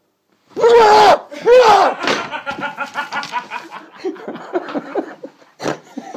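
Two loud screams from a startled person, about half a second in and again a second later, followed by a run of short, breathless voice sounds.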